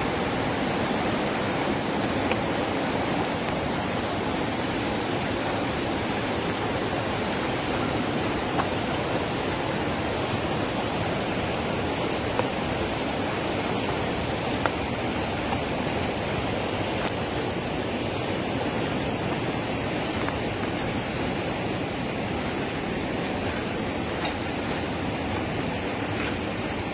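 A steady, even rushing noise with a few faint clicks.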